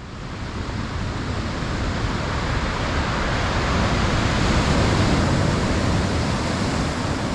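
Rushing surf noise, fading in, swelling to its loudest about five seconds in, then slowly fading away.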